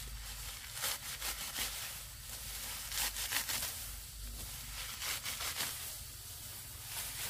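Lemongrass stalks and leaves rustling and tearing as they are harvested, in short, sharp bursts about every second or so.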